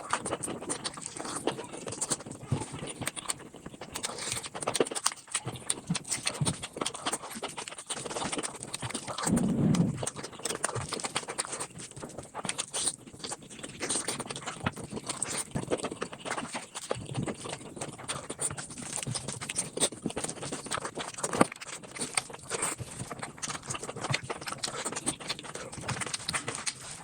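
Close-miked eating sounds sped up about five times: a dense, rapid patter of chewing clicks and crunches, with a short low-pitched sound about ten seconds in.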